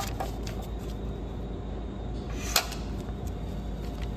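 A stack of dollar bills being lifted out of a plastic bill-acceptor cash box, with small scattered clicks and one sharp plastic click about two and a half seconds in, over a steady low hum.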